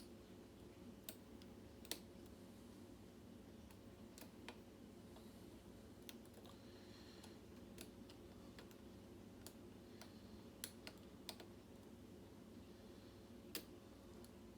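Faint, irregular clicks and ticks of a hook pick working the pins of a Kwikset-keyway pin-tumbler lock under tension, about a dozen spread out, over a steady low hum.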